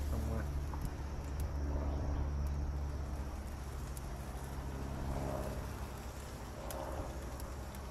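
A steady low engine drone, like a motor vehicle running nearby, slowly fading. A few light clicks come as chicken wings are set on the metal grill grate.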